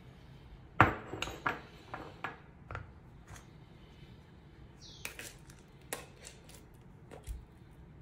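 A ceramic bowl set down on a hard countertop with one loud knock, followed by a few quick clinks. A few seconds later, a run of lighter clicks and taps as an opened metal can of wet cat food is handled and tipped over the bowl.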